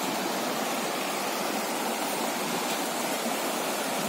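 Steady rushing of a fast-flowing river running over stones.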